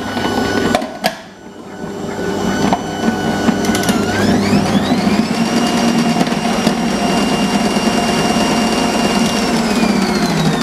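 Bosch MUM 5 kitchen machine running with its dicing attachment, a motor whine over a rushing hum. About four seconds in the whine rises in pitch as the motor speeds up, holds steady, then falls as it winds down near the end. A couple of knocks come about a second in.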